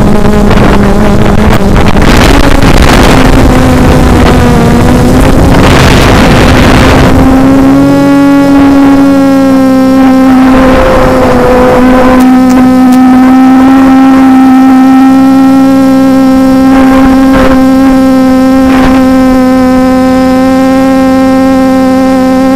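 Reptile 500 quadcopter's motors and propellers humming at a steady pitch, heard from the camera on board, with a rough rushing noise over them for the first seven seconds or so. The pitch rises a little about two seconds in and again about eight seconds in.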